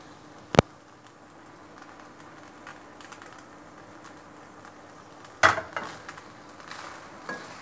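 Kitchen tongs knock against a nonstick frying pan about five and a half seconds in, then toss and stir a pan of spaghetti with clattering and rustling. A single sharp click comes about half a second in, over a low steady hiss.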